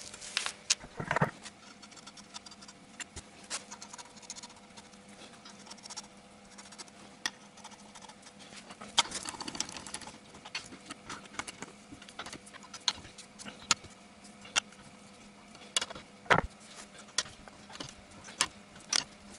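Light metallic clicks and taps, scattered and irregular, of wheel nuts being threaded onto a steel wheel's studs and run down with a socket wrench, busiest around nine to ten seconds in.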